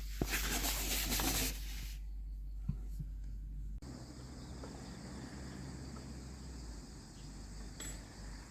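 Faint steady insect chirping over background hiss, with an abrupt change in the background about four seconds in.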